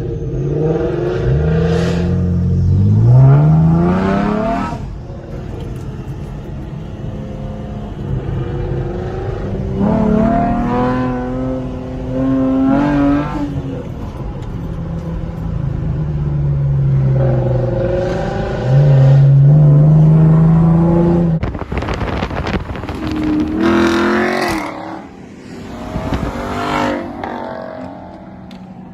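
V8 or twin-turbo V6 car engine with a performance exhaust, accelerating hard in several pulls. The pitch rises on each pull and drops between them.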